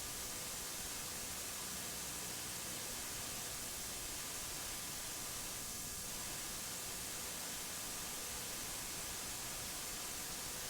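Steady static hiss, strongest in the high end, with a few faint steady tones underneath.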